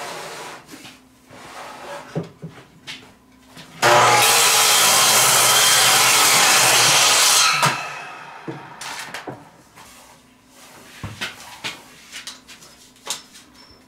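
Miter saw running for nearly four seconds as it cuts the end off a wooden board to square it. It starts abruptly about four seconds in and winds down after the cut, with scattered knocks of the board being handled before and after.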